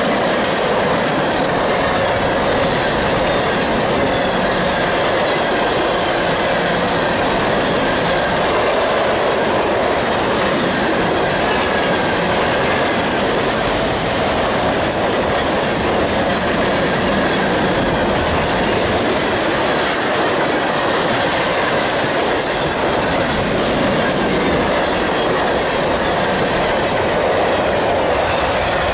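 Freight cars of a long mixed freight train (autoracks, centerbeam flatcars, covered hoppers) rolling past close by. Their steel wheels run on the rails with a loud, steady noise that does not let up.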